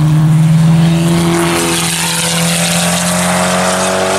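KTM X-Bow's turbocharged four-cylinder engine pulling hard at fairly steady revs, the pitch holding nearly level and creeping up slightly near the end.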